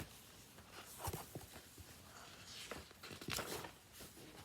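Faint handling noises in a quiet room: a few soft taps and rustles, clustered about a second in and again a little after three seconds.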